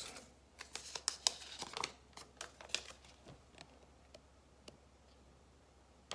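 A small folded slip of paper being unfolded and handled, a run of soft crinkles and ticks over the first three seconds, then only a few faint ticks.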